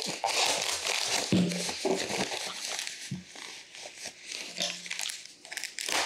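Foam packaging wrap crinkling and rustling irregularly as it is handled and pulled off a small satellite speaker.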